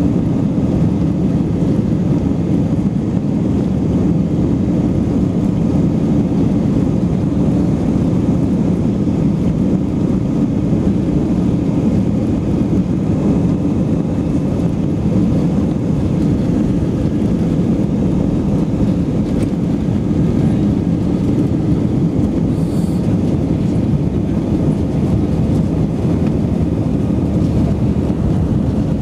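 Airbus A319's jet engines at takeoff thrust heard from inside the cabin during the takeoff roll: a loud, steady rumbling noise.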